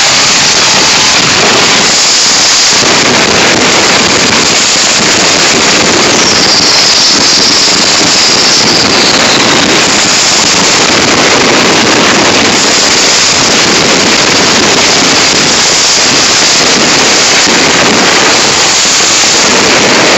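Ground fireworks fountains and firecrackers going off together in a loud, unbroken crackling hiss, with no separate bangs standing out.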